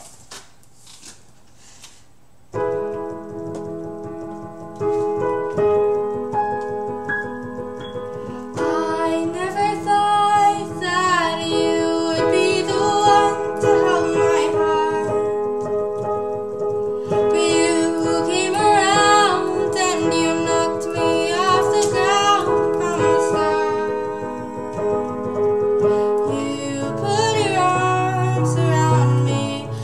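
Digital piano playing slow held chords, starting about two seconds in, joined by a girl singing a ballad melody from about eight seconds in, in phrases with short breaks between them.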